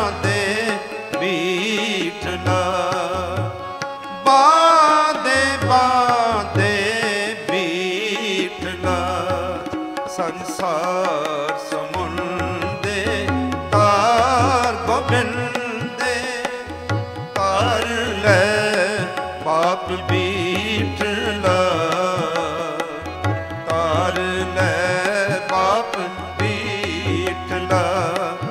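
Sikh Gurbani kirtan recorded live: a melody that bends and wavers in pitch over a steady tabla rhythm, with the drum dropping out briefly a few times.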